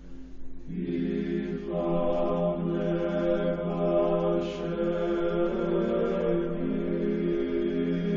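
A choir sings a slow church chant in several parts on long, held notes. Voices come in about a second in, and higher parts join just under two seconds in.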